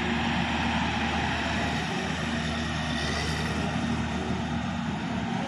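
LiuGong 939E excavator's diesel engine running steadily under hydraulic load as the machine swings and works its boom, arm and bucket.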